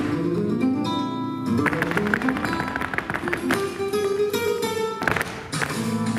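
Recorded flamenco music with a guitar playing runs of ringing notes that climb and fall, starting right at the outset, with the sharp taps of flamenco dancers' shoe footwork (zapateado) on the stage floor through it.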